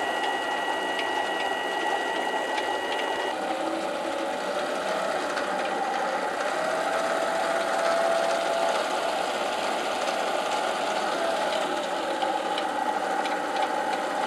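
Mini lathe running steadily while turning a bolt blank's shaft down to 4.7 mm, with a high whine that stops about three seconds in.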